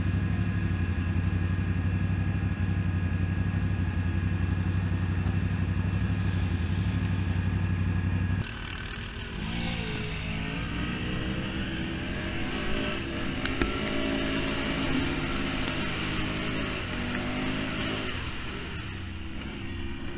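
Quad (ATV) engine running at a steady speed. About eight seconds in the sound changes abruptly to engines revving, rising and falling in pitch, with a few sharp clicks.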